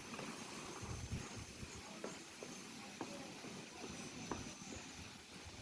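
Wood fire burning with a faint steady hiss and scattered small crackles, roughly one every second.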